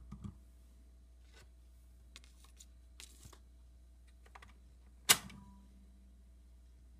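Garrard Synchro-Lab record changer cycling: scattered soft clicks and clacks from its mechanism, then one sharp click about five seconds in, over a low steady hum.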